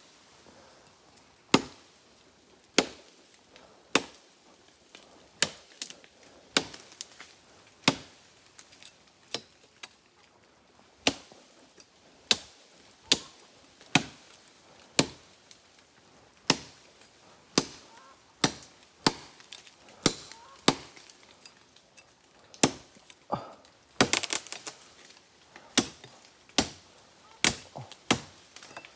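Repeated sharp chops of a blade into wood, roughly one stroke a second with a short pause partway through. A brief burst of rapid crackling comes about three-quarters of the way in.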